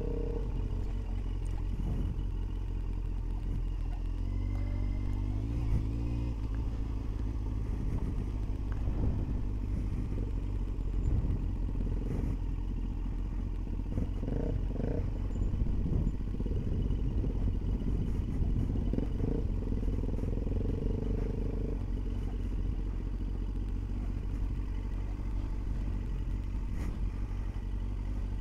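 Motorcycle engine running at low speed over a rough dirt road, with clattering and knocks as the bike jolts over bumps. The engine pitch shifts a few times.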